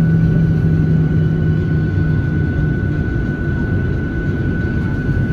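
Jet airliner's turbofan engines running while taxiing, heard inside the cabin: a steady low rumble with a constant high whine. A lower hum fades out about two seconds in.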